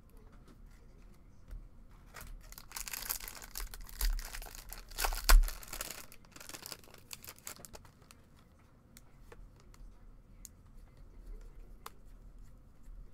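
A Topps baseball card pack wrapper being torn open and crinkled for a few seconds, with one sharp snap, the loudest sound, about five seconds in. Afterwards come faint clicks of cards being handled.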